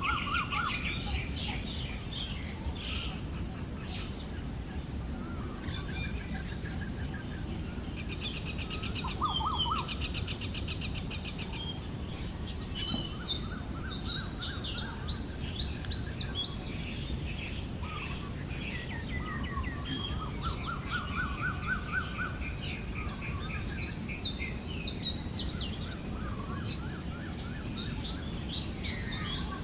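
Forest birds chirping and trilling, many short repeated phrases from several birds, over a steady high buzz and a low, even breeze-like hiss.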